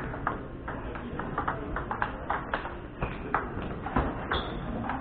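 Table tennis ball clicking in quick, irregular succession, struck by paddles and bouncing on the table during a rally.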